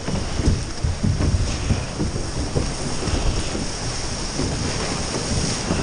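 Wind buffeting the microphone over the rush of surf and water around a surfboat, with irregular low gusts.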